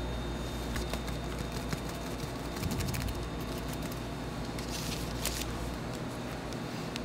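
Bakery kitchen work: scattered light clicks and taps over a steady low hum that stops near the end, with a short hiss about five seconds in.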